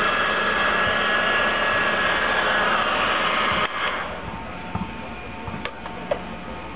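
Heat gun blowing steadily, as used to shrink heat-shrink tubing on wiring terminals, then switched off about four seconds in and winding down. A few light clicks follow over a low hum.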